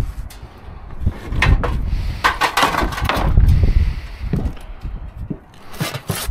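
Wooden pallet being handled and set down on brick paving: irregular knocks and scrapes of wood, with loose sheet-metal scraps sliding and clattering on it. Near the end, a short metallic scrape as a sheet of metal is pulled out of the bin.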